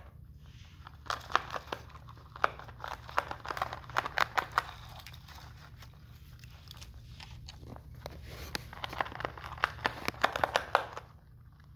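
A rabbit gnawing a large pine cone: fast, sharp crunches and cracks as the scales break, in two spells, one from about a second in and one from about eight seconds in, stopping about eleven seconds in.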